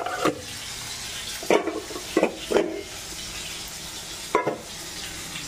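Stainless-steel plates and dishes being handled, clinking and knocking several times against a steady hiss.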